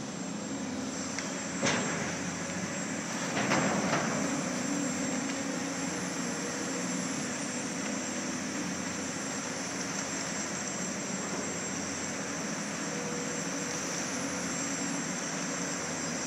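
Excavator diesel engine running steadily, with a sharp knock about two seconds in and a longer, louder clatter a couple of seconds later.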